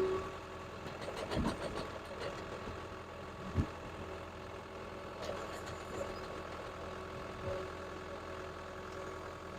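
Caterpillar 287B skid steer's turbocharged diesel engine idling steadily, with two brief knocks about a second and a half and three and a half seconds in.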